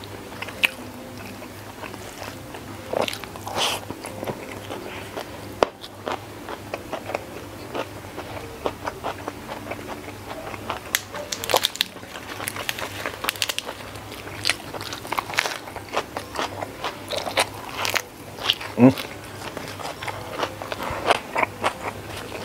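Close-miked eating sounds: biting and chewing a hand-eaten mouthful of rice with sardine, shrimp and petai sambal, with many short crisp clicks and wet smacks.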